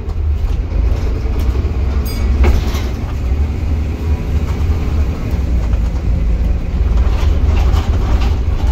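Volvo B7TL double-decker bus heard from inside the saloon, its six-cylinder diesel running hard at speed with a steady deep rumble and road noise. A sharp knock of the body about two and a half seconds in, and light rattling near the end.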